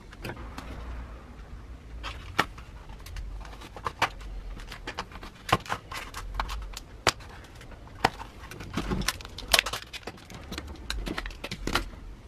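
Stiff plastic blister pack being cut and pulled open by hand: an irregular string of sharp plastic clicks, crackles and snaps.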